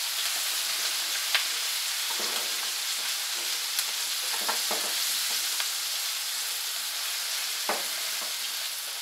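Chopped onions and tikka masala spice sizzling steadily in a frying pan as they are stirred with a silicone spatula, with a few short knocks of the spatula against the pan.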